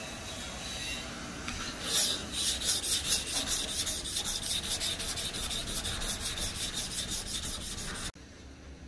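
A pad rubbed rapidly back and forth along a steel knife blade, about five hissy scrubbing strokes a second, scouring the dark tempering discoloration off to bright steel. The scrubbing starts about two seconds in and cuts off abruptly shortly before the end.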